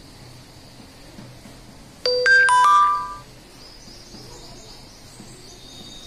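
An electronic chime, like a phone notification or ringtone, sounds about two seconds in: a quick run of several bright notes lasting about a second. Faint chalk scratching on the blackboard follows.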